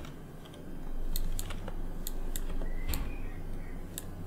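Scattered clicks of a computer keyboard and mouse, about seven in all, over a low steady hum that comes in about a second in.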